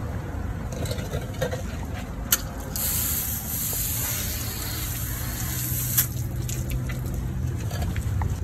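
Garden hose pistol-grip spray nozzle spraying water onto a boat hull for about three seconds, a hiss that starts and stops sharply, with a click just before it starts and another as it cuts off.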